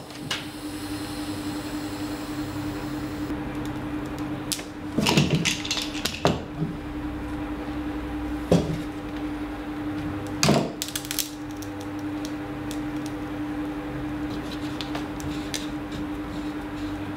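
Steamed wood strip being pushed and clamped around a wooden bending form, a handful of knocks and clatters of wood and clamps, with a steady low hum underneath.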